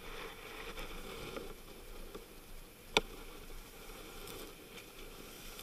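Rushing wind and breaking sea around a sailing yacht driving through rough water, with one sharp knock about three seconds in.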